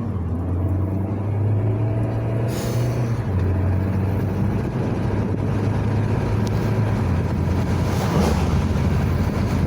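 Car engine and road noise heard from inside the cabin while driving: a steady low drone that shifts in pitch a couple of times, over a constant rush of tyre and road noise.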